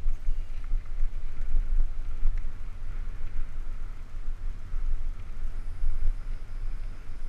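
Wind buffeting the microphone in an uneven low rumble, over the tyre and trail noise of a Cannondale Super V900 mountain bike descending a dirt singletrack at speed.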